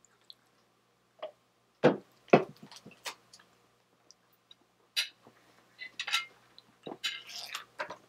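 Close-up eating sounds: a metal spoon and fork clinking and scraping against a ceramic plate while scooping rice and fish, mixed with chewing. The sounds are a string of sharp clicks and short scrapes, with the two loudest about two seconds in and a busier run of scraping near the end.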